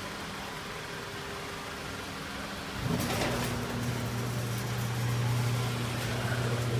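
Chamberlain LiftMaster garage door opener starting about three seconds in with a sudden clatter, then its motor running with a steady low hum as it raises the door.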